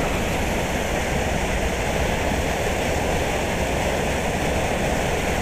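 Steady rush of water pouring through a culvert from a draining canal.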